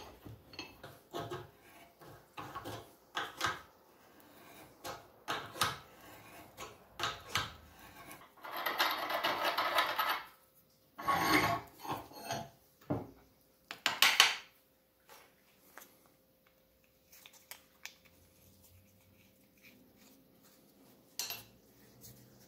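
Hand tap turned by a tap handle, cutting quarter-inch NPT threads into a drilled oil cooler block-off plate held in a bench vise: a run of short scraping and clicking strokes, with a longer rasping stretch about nine seconds in and a sharp click near fourteen seconds. In the last several seconds there are only a few fainter clicks.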